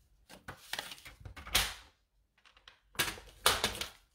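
Cardstock and craft tools handled on a tabletop: paper rustling and sliding, with louder swishes and knocks about a second and a half in and again around three to four seconds in as things are moved and set down.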